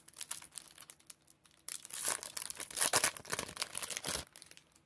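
A 2018 Topps Series 1 baseball card pack's crinkly wrapper being torn open and pulled apart to get the cards out. Light rustling at first, then about two and a half seconds of dense, loud crinkling that stops shortly before the end.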